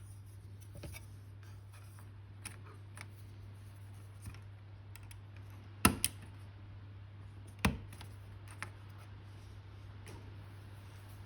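Light clicks and taps of small model-kit parts being handled and fitted together, with two sharp knocks about six seconds in and another just under two seconds later, over a low steady hum.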